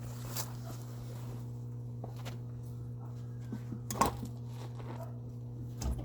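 A steady low hum with a few scattered light knocks and clicks; the sharpest knock comes about four seconds in and another near the end.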